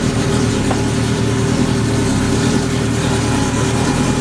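Car engine idling steadily and loud, close to the microphone, with no revving.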